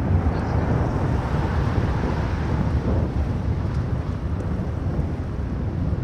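Steady wind buffeting on the microphone of a camera mounted on top of a moving Mango velomobile, with the velomobile's road noise underneath.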